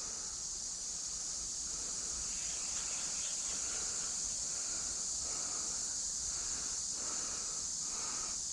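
A steady, unbroken high-pitched insect chorus.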